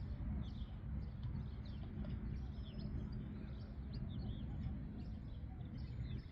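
Small birds chirping and twittering, many quick high calls overlapping throughout, over a steady low rumble of outdoor background noise.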